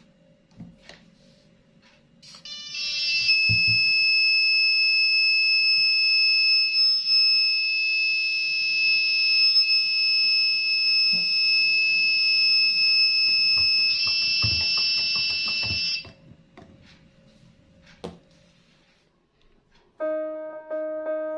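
Electronic buzzer of a homemade rain alarm sounding one steady, high-pitched continuous tone for about thirteen seconds, then cutting off suddenly, with a few faint knocks. Background music starts near the end.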